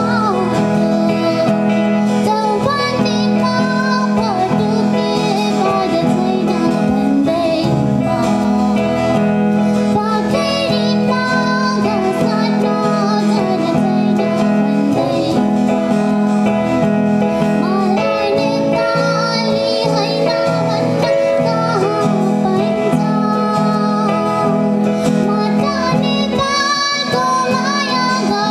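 A high voice singing a song over steady instrumental accompaniment.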